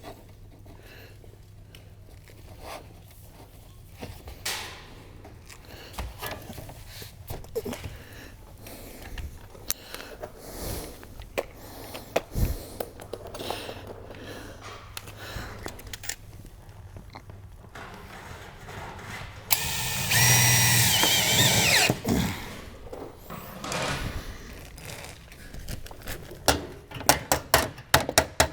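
Scattered clicks and taps of metal roofing trim being handled, then a power drill runs for about two seconds with a whining motor, driving a screw, about two-thirds of the way through. A quick run of sharp clicks follows near the end.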